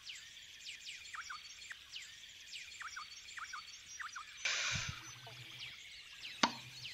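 Forest ambience of many songbirds chirping, with repeated quick downward-sliding chirps. About four and a half seconds in comes a half-second swish of fabric and grass, and near the end a single sharp click.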